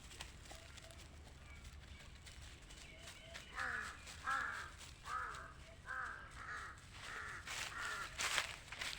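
Crows cawing: a run of about eight harsh caws beginning a few seconds in, with footsteps crunching near the end.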